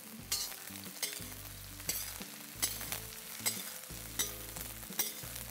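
Okra and cubed onions frying in hot oil in a steel wok on a high flame, sizzling steadily as a ladle stirs and tosses them. The ladle knocks against the wok about once a second.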